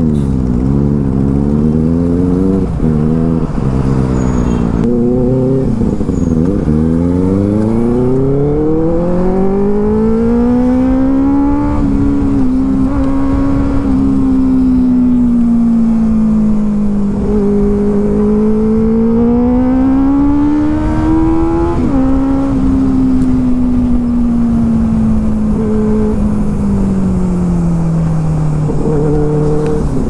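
Benelli TNT 600i's inline-four engine through an aftermarket IXIL exhaust, under way. In the first few seconds it revs up and drops back several times in quick succession, as on up-shifts. It then swells and eases in long sweeps of engine speed and winds down steadily near the end.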